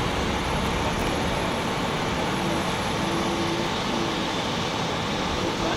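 Steady low rumble of idling emergency vehicles, fire engines and an ambulance with their engines running, with a faint hum over it.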